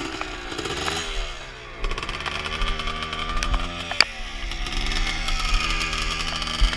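Small off-road vehicle engine running, its pitch rising and falling as it revs, with a sharp knock about four seconds in.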